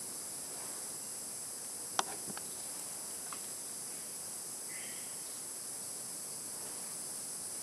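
Steady high-pitched chorus of rainforest insects, with a sharp click about two seconds in followed by a couple of fainter ticks, and a faint short call about halfway through.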